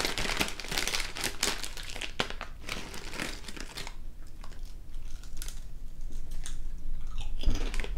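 Chip bag crinkling for the first few seconds as it is opened and a chip is pulled out, then sparser crunching as a wavy potato chip is bitten and chewed.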